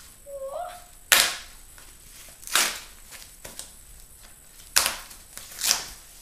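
Packaging being handled during unpacking: four short, sharp crackles or snaps, spaced a second or two apart, with a brief rising tone about half a second in.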